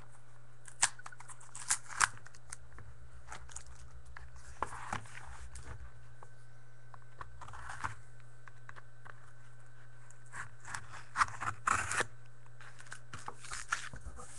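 Hands handling and opening a sealed cardboard trading-card box: scattered sharp clicks, taps and brief scrapes and crinkles of card stock and wrapping, heaviest about two seconds in and between about eleven and twelve seconds in.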